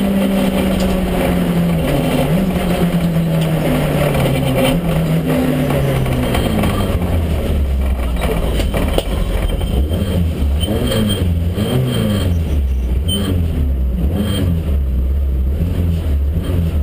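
Citroën Saxo Kit Car's 1.6-litre four-cylinder engine heard from inside the cabin, its note falling steadily as the car slows over the first six seconds. It then runs at low revs with the pitch wavering up and down as the car rolls along slowly.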